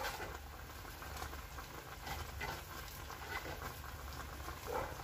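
Faint patter of sliced red onion dropping onto seasoned raw chicken in a pot: a few soft, scattered ticks over a steady low hum.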